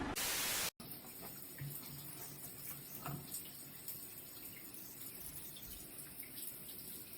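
A brief burst of hiss, then a water tap running faintly with small splashes and drips.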